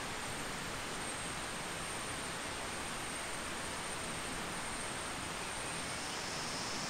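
Steady rushing of a forest river, an even wash of water noise, with a thin high whine held over it and a second, slightly lower whine joining near the end.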